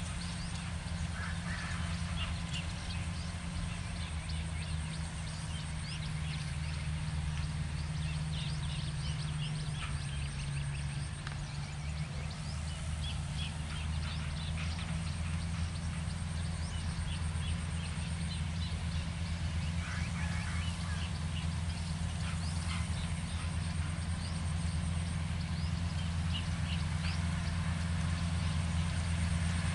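Small farm tractor's engine running steadily as it works the field, getting louder near the end as it comes closer. Bird calls are heard on and off over it.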